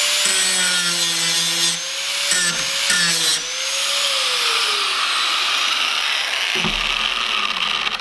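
Screwfix Titan 750-watt angle grinder running with no load: a steady motor whine and rushing noise, the whine wavering as it is moved about, then falling in pitch and fading about five seconds in as it winds down.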